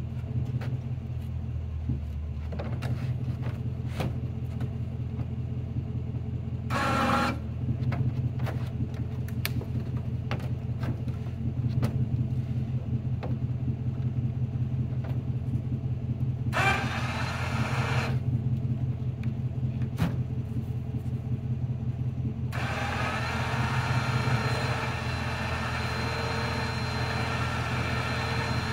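Pickup truck engine idling with a steady low hum, with scattered clicks and knocks from handling logs and rigging, and two short bursts of noise about 7 and 17 seconds in.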